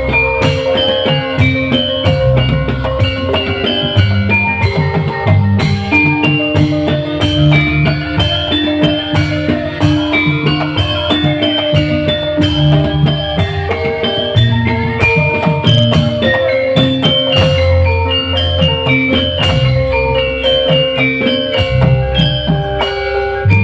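Live band music: drums and a bass line under a quick melody of short, high struck notes.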